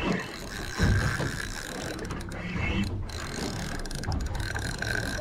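Spinning reel being cranked to wind in line, its gears giving a steady whirr, with low handling knocks on the rod and reel.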